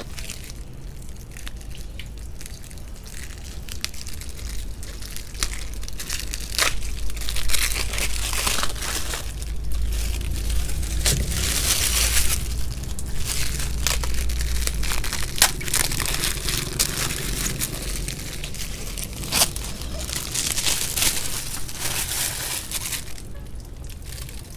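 Plastic wrapping on new sediment filter cartridges crinkling and crackling as they are handled, coming and going in spells with a few sharp clicks, over a low rumble.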